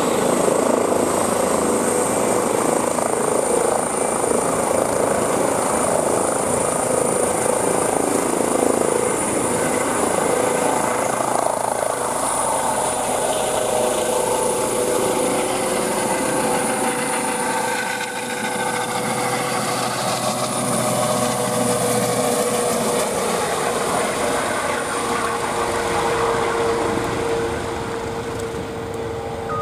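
Airbus H135 (EC135) helicopter taking off from the pad and climbing away, its twin turbines giving a high steady whine over the loud rotor noise. The sound eases slightly near the end as the helicopter moves off.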